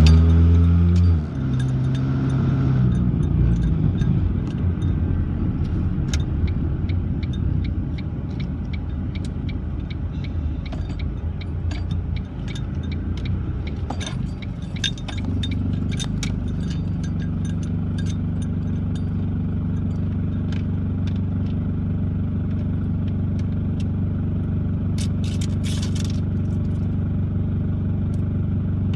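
A car running, heard from inside the cabin: for the first half a low rumble with many sharp clicks and rattles, then from about halfway through the engine idling steadily.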